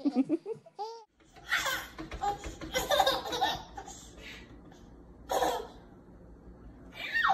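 A baby laughing in short bursts of giggles with pauses between them.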